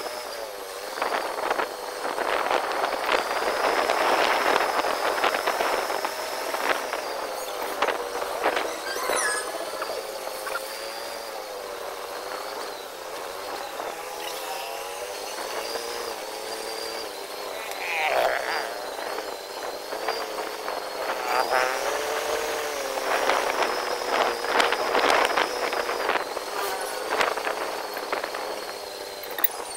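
Small motorcycle engine running while riding, its whine wavering up and down with the throttle, with wind buffeting the microphone at times.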